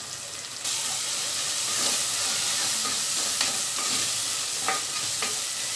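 Onion-tomato masala with spice powder sizzling in hot oil in a pressure cooker as it is stirred with a spoon. The sizzle gets louder less than a second in, and there are a few short clicks of the spoon against the pot.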